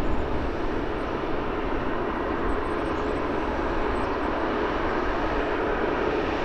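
Airliner engines running, a steady even rush of engine noise with no change in level.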